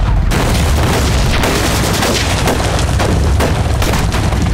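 Staged battle sound: explosions and gunfire overlapping in a continuous loud din over a deep rumble.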